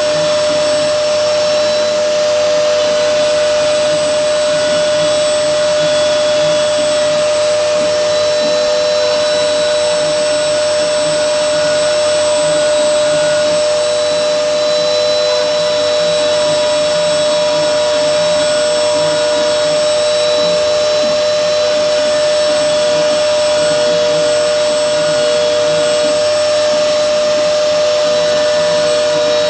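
CNC router spindle running steadily while milling, a continuous motor whine with a dense rushing noise. A second tone wavers slightly in pitch as the load shifts.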